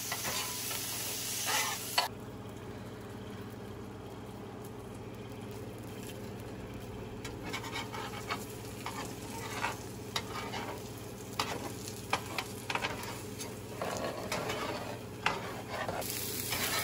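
Chicken and then beaten egg sizzling on a flat griddle, with metal spatulas scraping, tapping and chopping against the griddle's surface. A sharp clack comes about 2 seconds in, after which the sizzle is quieter, and from about 7 seconds on the spatulas scrape and click repeatedly as the egg is chopped up.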